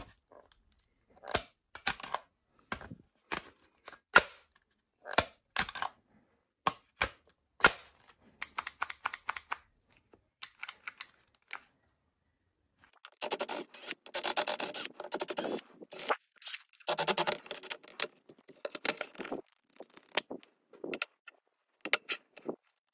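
Hard plastic clicks and knocks of a cordless impact wrench and its battery adapter being handled, with two stretches of denser scraping and rattling past the middle.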